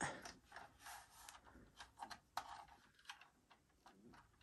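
Near silence with faint scattered clicks and rubs: a model Lamborghini SUV being turned over in the hands.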